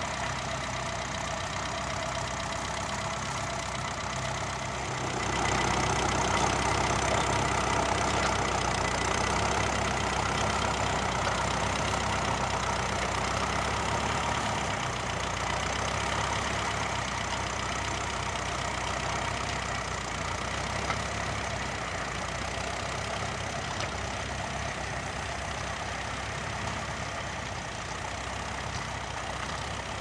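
Vintage grey Ferguson tractor's engine running steadily under load as it pulls a mounted plough, growing louder about five seconds in.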